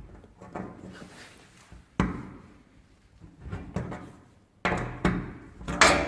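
A series of sharp knocks and clunks, the loudest about two seconds in and a cluster of three near the end, the last one leaving a short ringing tone.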